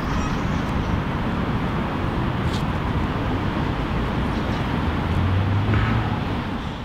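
Outdoor city ambience: a steady rush of road traffic, with a vehicle's low engine hum swelling about five seconds in.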